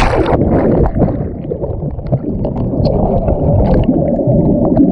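Muffled underwater sound of pool water, heard with the microphone submerged: churning water and bubbles. A splash comes right at the start as it goes under.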